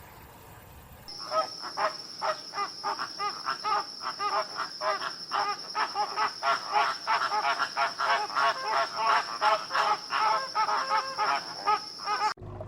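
A flock of birds calling, many short squawking calls several a second, over a steady high-pitched drone. The sound starts abruptly about a second in and stops abruptly near the end.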